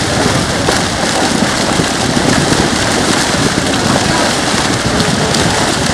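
Hundreds of fish crowded in a drawn-in seine net, thrashing and splashing at the water's surface in a continuous, dense, loud splashing.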